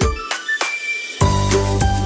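Background music with a steady beat; a low bass line and fuller backing come in a little over a second in.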